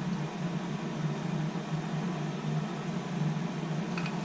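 Steady low machine hum, with a faint tick about four seconds in.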